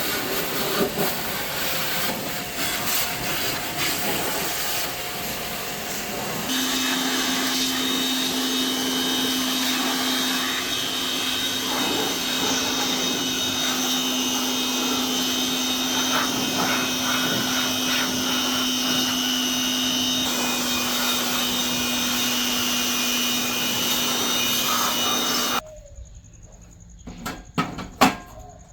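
A motor-driven tool running steadily with a noisy whir; a steady hum joins in about six seconds in. The sound cuts off abruptly near the end, followed by a few sharp clicks.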